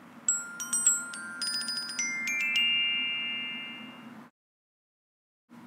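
A quick run of struck, bell-like chime notes, a dozen or so over about two seconds, stepping upward in pitch. They are left to ring on and fade, then cut off to silence about four seconds in.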